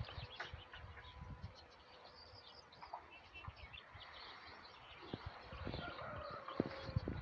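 Small birds chirping and twittering, with footsteps through grass and dull thumps from the phone being carried.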